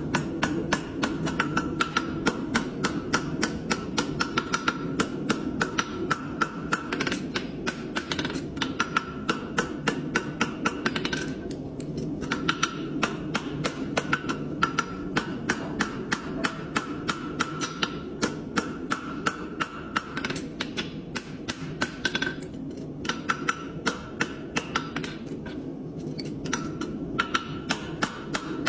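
Hand hammer striking a red-hot steel horseshoe on the anvil horn, quick blows about three a second, with the anvil ringing after each strike. The hammering pauses briefly twice, over a steady low hum.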